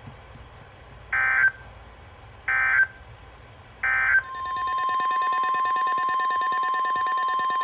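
Emergency Alert System end-of-message: three short bursts of screeching digital data about a second and a half apart, then a long, loud, steady attention tone starting about four seconds in, the NOAA Weather Radio alert tone that announces the next warning.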